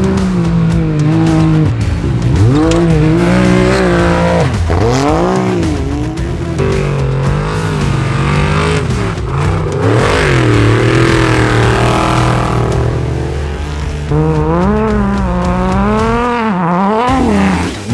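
Off-road race vehicles' engines revving hard one after another, a race truck and then a side-by-side buggy, the pitch rising and falling repeatedly as the throttle is worked over rough dirt.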